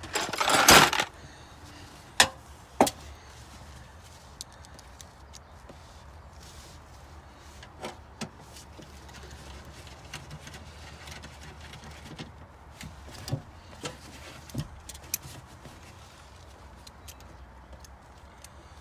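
Hand-work noises from reassembling a hybrid battery pack: a loud rubbing noise in the first second, two sharp knocks a couple of seconds in, then scattered light clicks and taps over a low steady hum.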